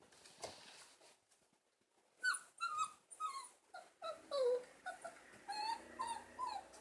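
Shiba Inu puppy whimpering: after about two seconds of near quiet, a quick run of short, high whines, several of them sliding down in pitch.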